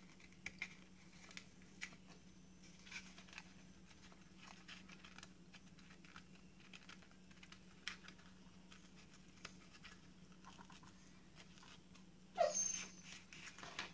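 Faint rustles and small clicks of fingers picking and peeling paper at the string hole of a handmade napkin tag, over a low steady hum. Near the end comes one brief, louder squeak.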